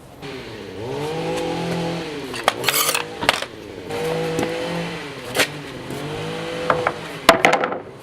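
Harbor Freight 6 amp corded reciprocating saw run three times. Each time the motor spins up in a rising whine, holds about a second and winds back down, with sharp knocks and clatter between the runs.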